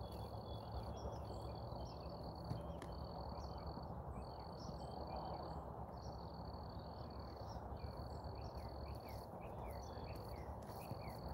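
Insects trilling at one steady high pitch in repeated runs of about a second, with short breaks between them. Scattered short bird chirps and a low steady background rumble run under it.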